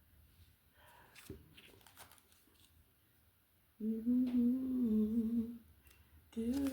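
A woman humming a few wavering notes for about two seconds, starting about halfway through, then starting to hum again just before the end. Before that there are only faint small clicks and rustles.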